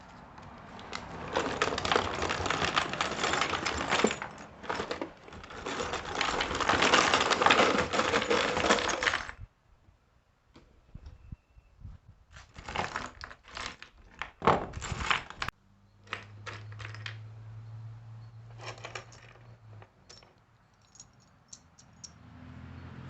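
A container of small wire connector ends is poured out and raked through by hand: a dense jingling clatter for about nine seconds, then scattered clicks as pieces are picked through.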